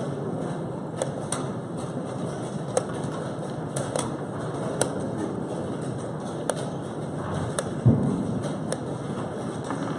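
Wooden chess pieces being set down on the board and chess clock buttons being pressed in quick succession: a string of sharp, irregular clicks, with one heavier thump about eight seconds in. It all sits over a steady background hiss.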